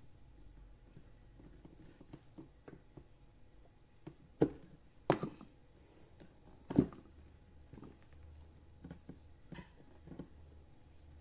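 Handling noise as a small speaker driver and its wires are worked into the top of a PVC pipe speaker enclosure: faint scattered taps and clicks, with three louder knocks about four and a half, five and seven seconds in.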